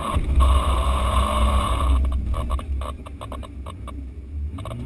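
Off-road 4x4's engine running with a deep, steady low rumble while the vehicle climbs a steep track. From about two seconds in, short knocks and rattles come from the body and suspension.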